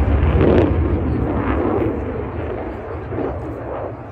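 Aircraft engines going past overhead: a loud, low rumble that fades steadily as the aircraft move away, with voices underneath.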